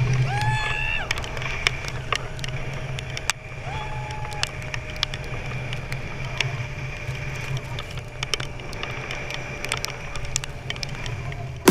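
Zipline trolley running down its steel cable: a steady whirring hum with a thin constant whine and scattered rattling clicks. Two short high whoops, about half a second in and again about four seconds in.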